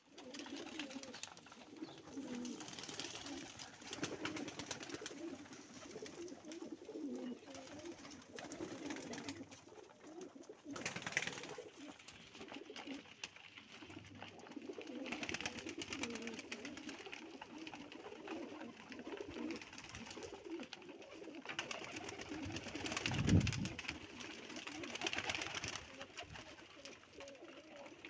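A loft full of domestic pigeons cooing continuously, with a few short rustles and one low thump late on.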